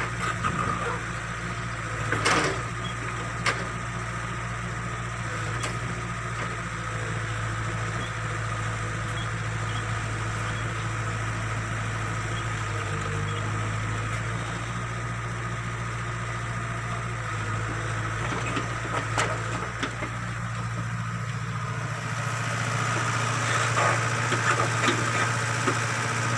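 Backhoe's diesel engine running steadily, with a few sharp clanks, and working louder with more clatter over the last few seconds.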